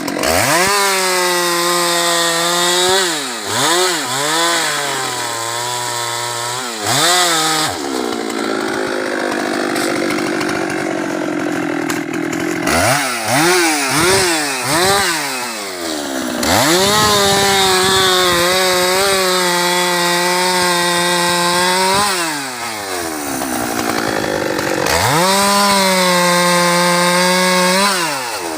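Husqvarna 390 XP two-stroke chainsaw held at full throttle in three long stretches, cutting into teak wood. Between the stretches there are quick blips of the throttle and spells of idling.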